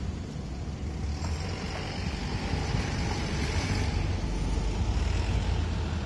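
Road traffic rumble, with one vehicle passing: its tyre hiss swells about a second in and fades about four seconds in.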